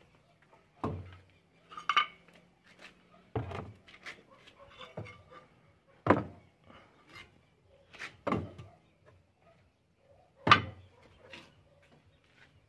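Broken clay roof-tile pieces knocking and clinking as they are set one by one into the bottom of a plastic barrel, a sharp clack every second or two at uneven intervals.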